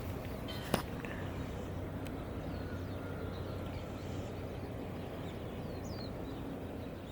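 Steady outdoor background noise with a low hum, one sharp click shortly after the start, and a few faint, short high chirps.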